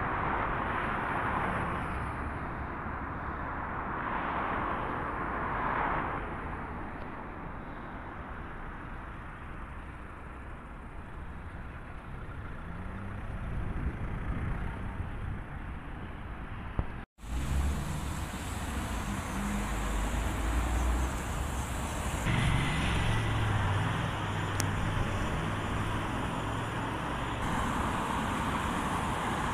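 City street traffic: cars passing and pulling away from a junction, their engine and tyre noise swelling and fading, with one engine rising in pitch as it accelerates. After a brief dropout about 17 seconds in, a deeper engine rumble from nearby traffic.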